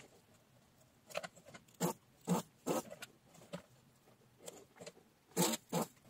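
A desoldering iron worked on a small circuit board to pull out an HT7333-A voltage regulator: a scattering of short, sharp clicks and scrapes, with the two loudest close together near the end.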